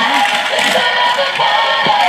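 Electronic music with a synthetic singing melody, playing steadily.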